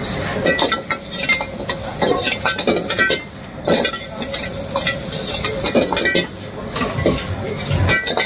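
A steel ladle clanking and scraping against a wok as sliced vegetables are stir-fried and sautéed, with the food sizzling underneath. The clanks come irregularly, several a second at times, some with a brief metallic ring.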